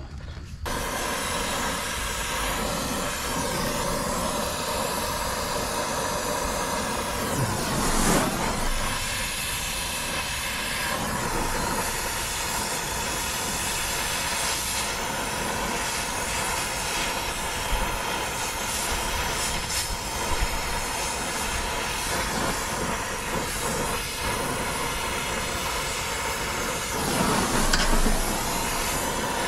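Brazing torch flame hissing steadily while heating the compressor's brazed line joints to unsweat them, with nitrogen flowing through the lines. The hiss swells briefly about eight seconds in and again near the end.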